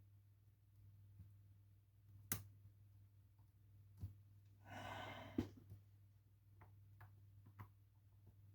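Faint sharp clicks of lock picks working the pins of a Lockwood Twin lock, a few seconds apart, with a person's sigh about halfway through, over a low steady hum.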